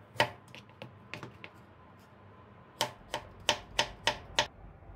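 Kitchen knife chopping vegetables on a plastic cutting board. There is a sharp knock, then a few lighter taps, and near the end six even chops, about three a second.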